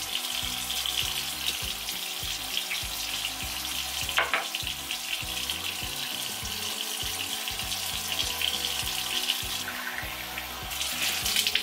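Bathroom faucet running steadily into the sink while water is splashed onto the face with cupped hands.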